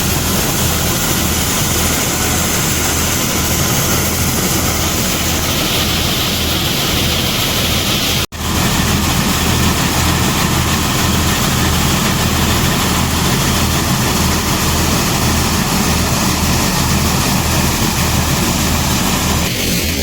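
Tractor-driven corn thresher running steadily: an engine's low, even pulsing under a dense, hissing machine noise. The sound drops out for an instant about eight seconds in, then resumes unchanged.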